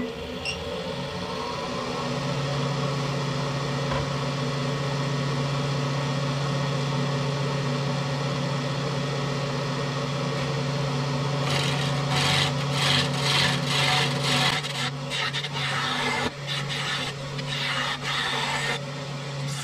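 Wood lathe motor spinning up over the first couple of seconds, then running with a steady hum. From a little past halfway, a 3/8 inch bowl gouge cuts into the spinning cherry spoon blank in rough, uneven scraping strokes.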